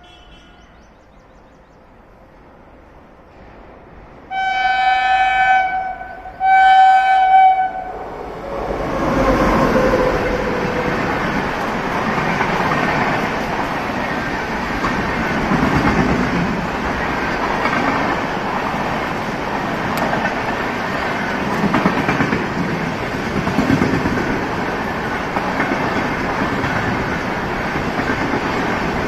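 Indian Railways locomotive horn giving two shrill blasts, each about a second and a half long, a few seconds in. Then the train runs close past: a steady loud rumble of wheels and coaches with clickety-clack over the rail joints.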